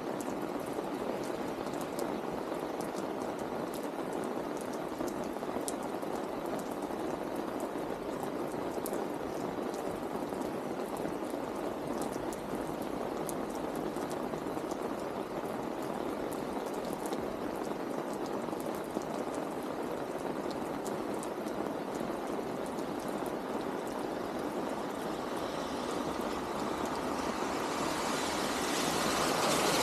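Steady rain falling on a wet street, with scattered sharper ticks of drops. Near the end a car approaches on the wet road, its tyre hiss growing louder.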